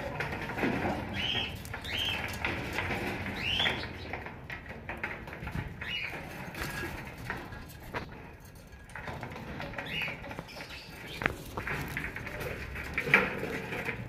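Budgerigars chirping: short rising calls every second or two over a soft background chatter, with scattered light ticks.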